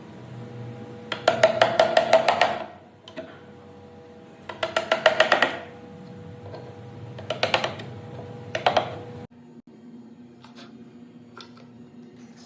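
Music with four bursts of rapid, evenly spaced percussive clicks over steady held tones. It cuts off abruptly about nine seconds in, leaving a quieter stretch with a few faint taps.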